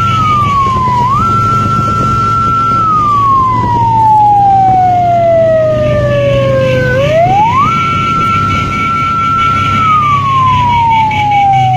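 A loud wailing siren-like tone, one clear pitch that holds, then slides slowly down and jumps quickly back up, three times, with the longest slide in the middle, over a low rumble.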